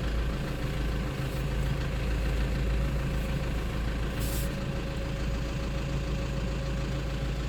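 Toyota SUV engine idling steadily, with a short hiss about four seconds in.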